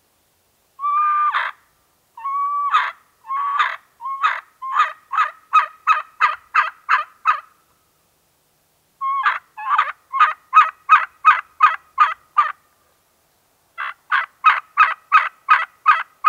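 Hen turkey yelps made on a diaphragm (mouth) call: first a few slow, drawn-out notes broken down one at a time, then three runs of quick yelps, about three a second, with short pauses between them.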